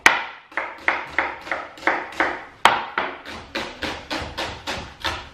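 Kitchen knife chopping an onion on a wooden chopping board: a steady run of knife strokes, about three to four a second, with a couple of harder knocks among them.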